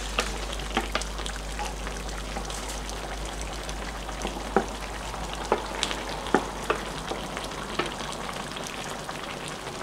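Pan of pork afritada in tomato sauce sizzling with a steady hiss while chopped bell peppers are scraped off a plate into it with a wooden spoon. Scattered sharp clicks of the spoon on the plate and the peppers dropping in.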